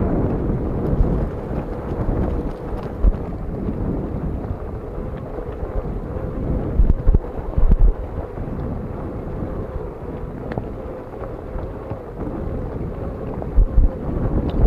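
Wind buffeting the microphone in loud rushing gusts, with low thumps every few seconds and a faint steady hum underneath.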